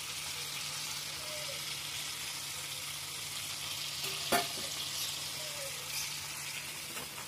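Blended chili spice paste sizzling steadily in plenty of cooking oil in a wok as it is fried down to dry out, with one sharp knock of the metal spatula against the wok about four seconds in.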